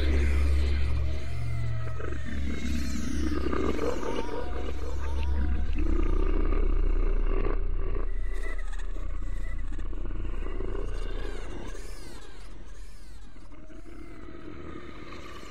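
Animal-like calls over a steady low hum, with high rising-and-falling chirps above them, fading out over the last few seconds.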